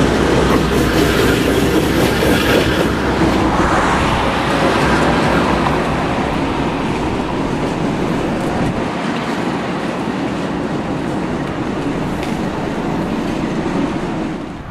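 Two diesel-electric locomotives, a GE C44-9W and an EMD SD70ACe, running light without cars: deep engine rumble and wheels on the rails as they pass close by and then move away. The low rumble weakens after about six seconds and the whole sound slowly fades.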